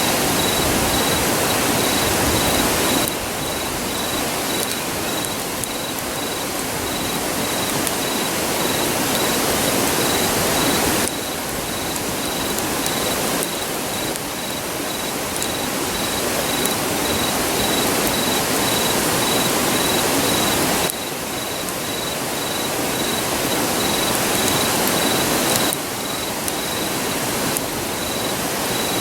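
Steady rushing roar of a nearby river, with an insect chirping in a fast, even, high-pitched pulse over it. The roar drops and rises abruptly a few times.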